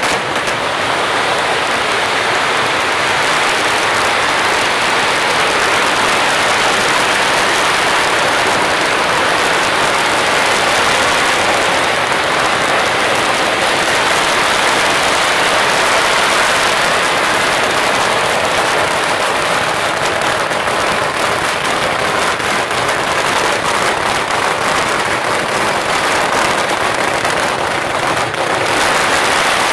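Strings of firecrackers going off in a dense, continuous crackle of rapid pops without a break.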